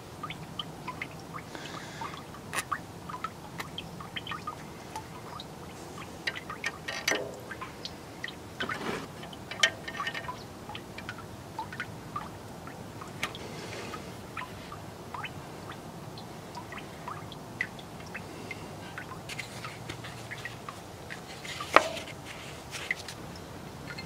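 Scattered small clicks and clinks of hand tools and metal parts as a diesel tractor's fuel filter housing is taken apart, with liquid dripping now and then.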